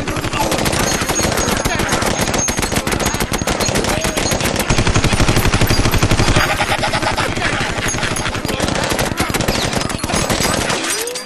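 Sustained automatic rifle fire from several guns at once: a dense, rapid rattle of shots that thins out just before the end.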